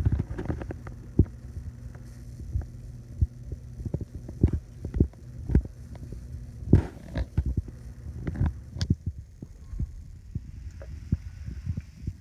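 Handling noise from a hand-held camera: irregular low thumps and rubs on the microphone, with a faint steady low hum behind.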